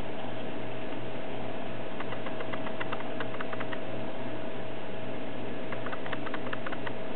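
Faint clicks and rattles in short runs from a mouse's plastic exercise ball rolling across a kitchen floor, over a steady hum and hiss with one steady tone.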